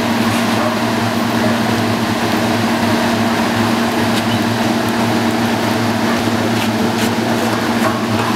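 An engine running steadily: a constant low hum with an even hiss over it.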